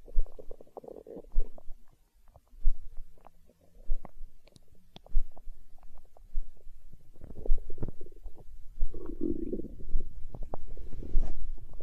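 Stomach growling and gurgling: short gurgles at first, then a longer, louder stretch of rumbling from about seven seconds in. Soft low thumps recur about every second and a quarter.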